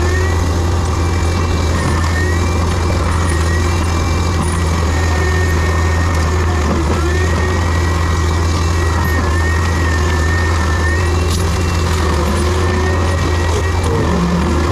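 Heavy diesel equipment engine running steadily under a low drone, with a thin high whine that wavers slightly in pitch.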